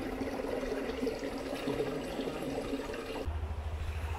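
Water running steadily in a flood-swollen ditch, an even rush. About three seconds in it breaks off abruptly into a low, steady rumble.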